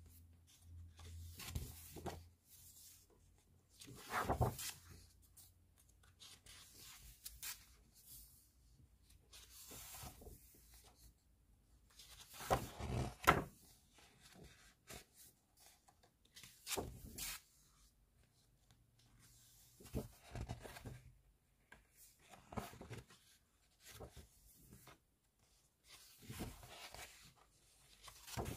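Thick photobook pages being turned by hand, a papery swish or flap every few seconds, the loudest about thirteen seconds in.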